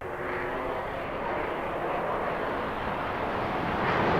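Military jet recording played solo: dense jet noise that starts abruptly and grows steadily louder.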